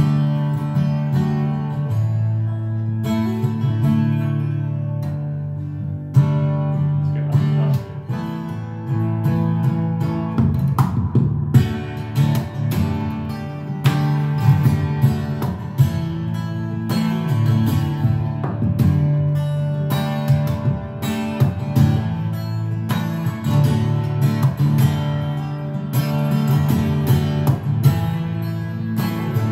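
Solo steel-string acoustic guitar played fingerstyle: sustained bass notes under a picked melody and chords, with sharp struck accents that come thicker from about ten seconds in.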